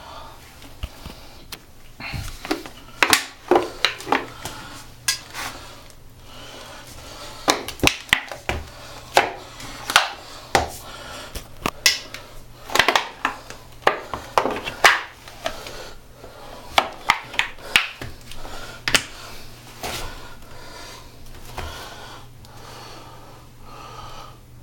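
An empty plastic dishwashing liquid bottle crackling and crunching as an American Gentleman side-zip dress boot stomps on it and crushes it, in irregular sharp cracks, some in quick clusters, loudest around the middle.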